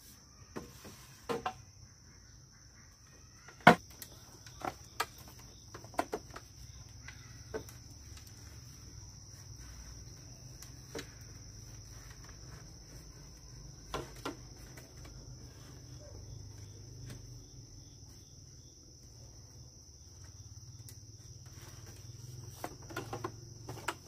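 A steady, high-pitched chirring of crickets, with scattered sharp knocks and clicks over it, the loudest about four seconds in and a quick cluster near the end.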